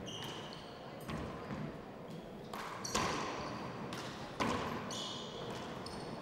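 A 40x20 handball rally: the rubber handball is struck by hand and smacks off the walls and wooden floor in about six sharp, echoing impacts. Short high squeaks of court shoes on the wooden floor come between the hits.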